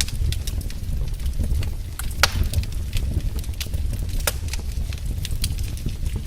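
Fire burning in a fireplace, crackling and popping irregularly over a steady low rumble, with one louder pop about two seconds in.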